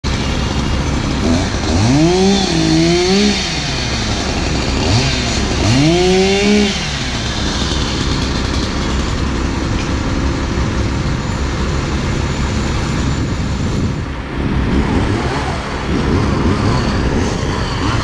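An engine revved up and back down twice, about two seconds and five seconds in, over a steady rumble of machinery.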